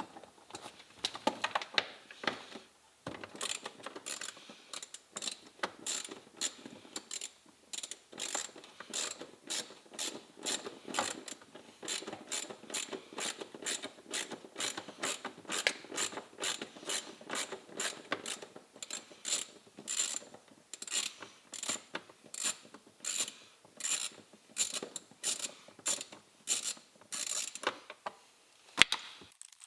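Quarter-inch-drive ratchet with an 8 mm socket clicking in steady, repeated strokes, about two to three a second, as small bolts are backed out. The clicking stops shortly before the end, followed by a single knock.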